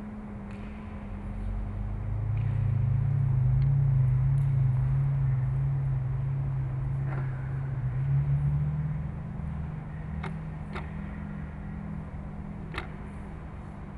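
A low, steady hum that swells for several seconds, then eases back, with a few light clicks near the end.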